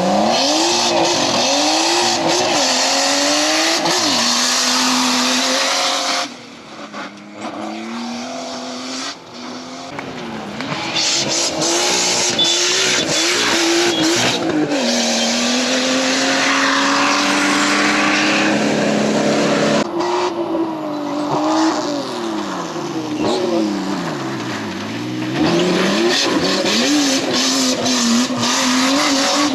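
Off-road race cars' engines revving hard, the pitch climbing and dropping again and again through gear changes and throttle lifts, over a loud rushing noise. The sound changes abruptly a few times, as different cars cut in.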